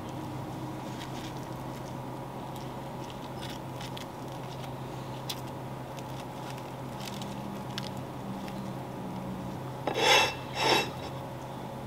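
Faint light crackles and ticks of hands laying a breaded fried fish fillet and brioche bun top in place, then near the end a ceramic plate scraped twice across a wooden cutting board, the two loudest sounds.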